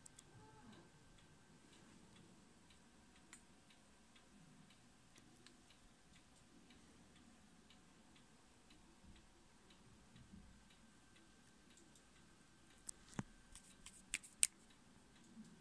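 Near silence: room tone with faint, evenly spaced ticking, and a few sharp clicks close together near the end.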